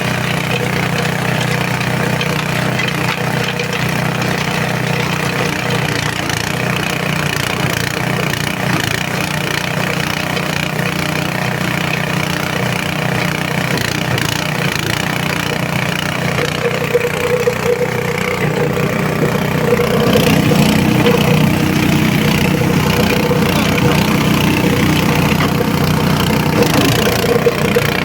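An organic waste shredder and grinder machine running with a steady mechanical drone. About two-thirds of the way through it grows a little louder and its tone changes, then stays steady.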